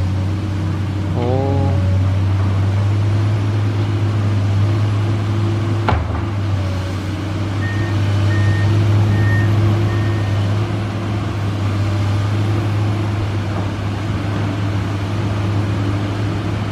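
Komatsu PC200 excavator's diesel engine running steadily with a deep, even drone. A sharp click sounds about six seconds in, and four short high beeps follow a couple of seconds later.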